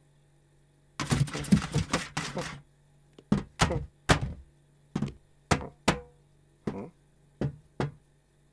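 Cartoon sound effects of a cat's paws on a kitchen pedal bin. About a second in there is a second and a half of rapid scrabbling and scratching, then a string of single thuds and taps about every half second, one of them with a short ringing tone.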